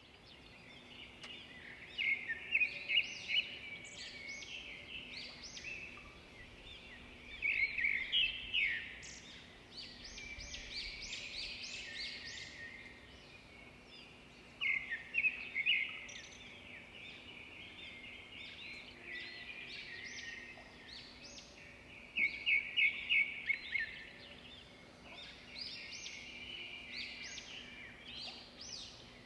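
Several birds chirping and twittering together, with a louder run of quick repeated chirps every six or seven seconds.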